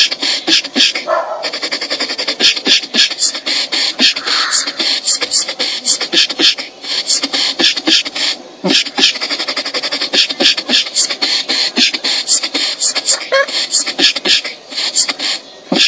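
Beatboxing: a fast, continuous stream of vocal percussion, with kicks, snares and hi-hat clicks made with the mouth behind a cupped hand, breaking off briefly a couple of times.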